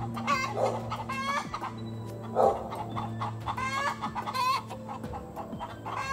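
Chickens clucking and cackling in a string of repeated calls, over a steady low hum.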